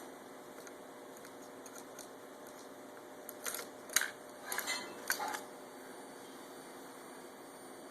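A handful of light metallic clinks and rattles, a few short bunches between about three and five and a half seconds in, over a faint steady hum.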